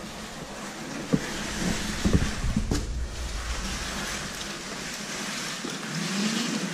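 Cardboard box being handled on a tile floor: continuous rustling and scraping, with a few sharp knocks between about one and three seconds in.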